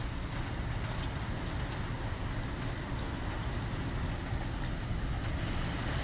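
Typhoon-force wind rushing over and around a high-rise building: a steady, low rumbling roar with faint scattered ticks.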